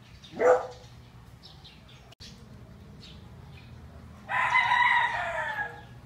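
A rooster crowing once near the end, a long call of about a second and a half that falls in pitch at its end. About half a second in there is a short, loud rising call, and faint chirps of small birds run underneath.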